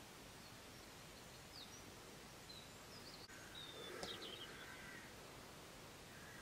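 Near silence: quiet outdoor background with faint distant birds calling, a few short high chirps around the middle.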